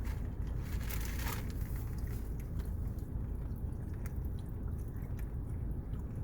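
Someone drinking from a can: sips and swallows, with a few clicks in the first second and a half, over a steady low rumble.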